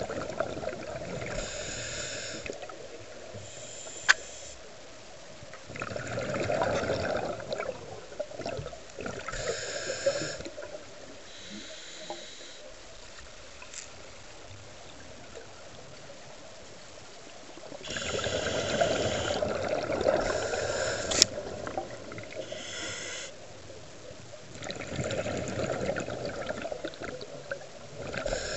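A scuba diver breathing through a regulator underwater: about four breath cycles, each a rush of inhaled air and a burst of exhaled bubbles, with quieter gaps between. Two sharp clicks, near 4 s and 21 s.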